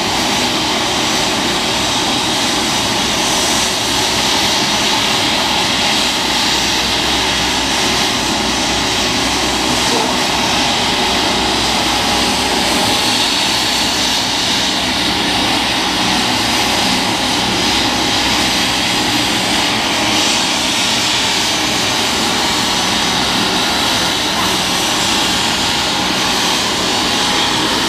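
A rescue helicopter's turbine engine running steadily: a constant whine over an even rush of noise.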